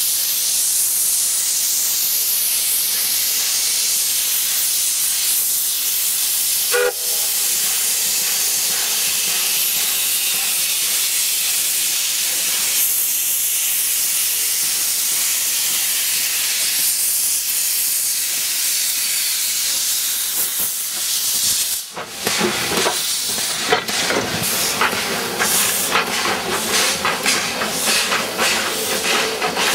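Soviet Eu-class (Эу) 0-10-0 steam locomotive blowing steam from its cylinder drain cocks: a loud, steady hiss, with one brief tone about seven seconds in. Near the end it sets off, the hiss broken by a quick run of exhaust chuffs and steam bursts.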